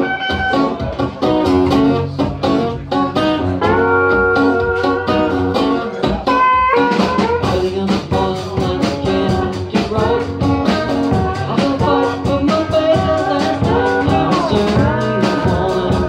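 Small acoustic group playing live: acoustic guitars with an Ibanez PCBE-12 acoustic bass guitar played through a Fender Rumble 100 bass amp, the song starting abruptly at the beginning.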